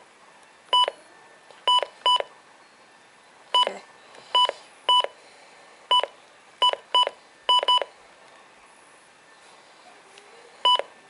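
Midland WR-300 weather radio giving short electronic key beeps as its buttons are pressed to scroll through the alert menu, about a dozen at uneven spacing, with a pause of about three seconds before the last.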